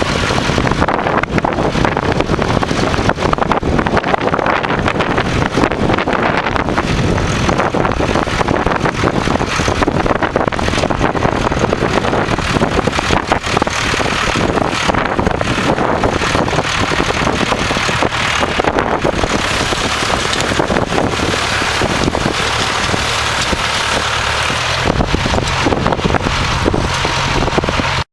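Tractor engine running steadily, with wind buffeting the microphone.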